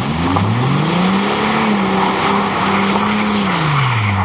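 Car engine revving hard with its wheels spinning through mud, over a steady hiss of spinning tyres and spraying mud. The engine note climbs over the first second and a half, holds high, and drops away near the end.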